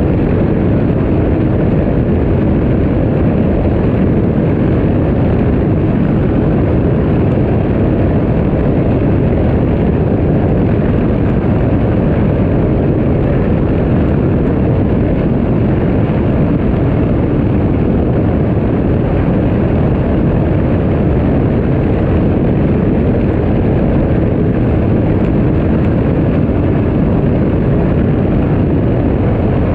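Sea-Doo RXT-300 jet ski, with its supercharged Rotax 1630 ACE three-cylinder engine, running steadily under way. It makes a dense, even roar, heaviest in the low end, that holds without change throughout.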